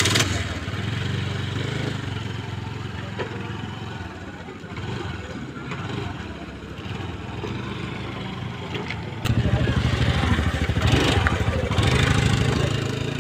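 Small single-cylinder scooter engine running steadily. About nine seconds in the engine sound jumps louder and stronger, as a scooter is throttled up to pull away.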